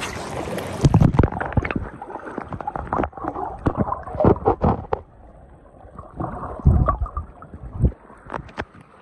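Water gurgling and sloshing heard with the phone's microphone dipped under the water of a trout-farm raceway: muffled, dull swishes with several loud surges as the phone moves through the water.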